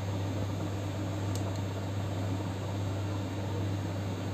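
Steady low hum with a hiss of background noise, and one faint click about a second and a half in.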